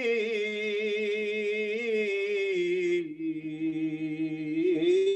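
A man's voice singing an Urdu marsiya lament, holding one long drawn-out note that steps lower about halfway through and lifts again near the end.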